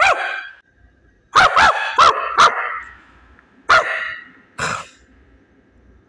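A person's voice imitating a Maltese's high yapping barks: a run of four quick yaps a little over a second in, then two single yaps about a second apart.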